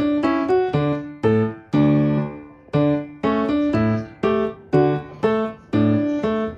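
Background piano music: a light melody of evenly paced single notes, each struck and then fading.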